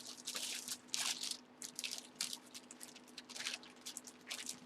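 Packaging crinkling and rustling as it is handled, in a string of short, irregular bursts.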